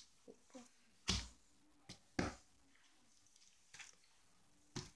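A few brief, quiet rustles and taps from handling plastic-wrapped paperback books, spaced a second or more apart.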